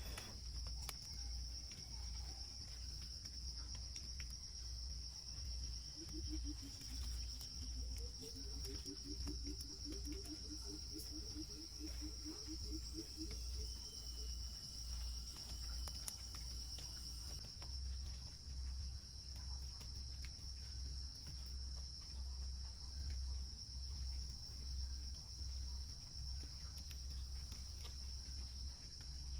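Rainforest insects, crickets or cicadas, keeping up a steady high-pitched drone. From about six seconds in to about thirteen, a lower animal call joins in as a rapid trill, and a low rhythmic pulsing runs underneath.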